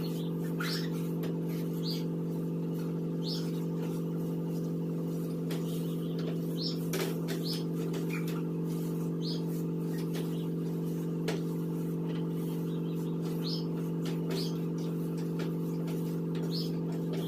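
Wooden spoon stirring a thick, stiff pumpkin paste in an enamel pot, giving short squeaks and light knocks every half second to a second, over a steady low hum.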